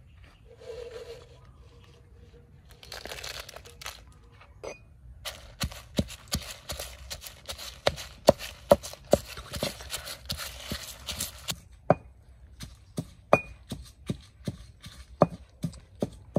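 A run of sharp knocks, roughly two a second, starting about five seconds in, over a rustling hiss that cuts off near twelve seconds.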